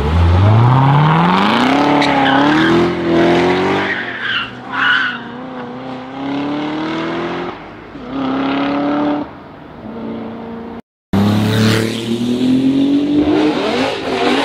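A Chevrolet Corvette C7's V8 accelerating hard, revving up through several gear changes with some tyre squeal. After a brief cut near the end, another car's engine revs up again.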